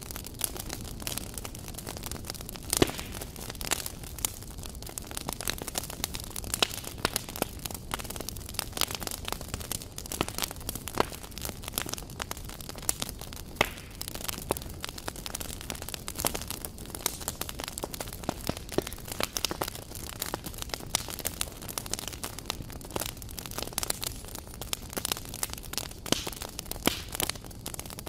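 Wood fire and embers crackling, with frequent irregular sharp pops over a steady hiss; the loudest pop comes about three seconds in.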